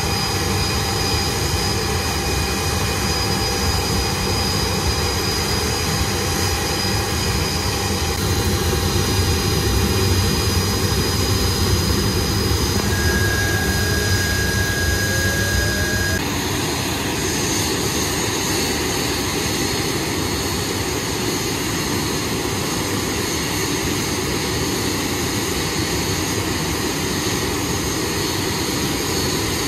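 Blackburn Buccaneer's twin Rolls-Royce Spey jet engines running on the ground, a steady high whine over a rumble. About halfway through, the low rumble drops away and the whine changes pitch as the power setting changes.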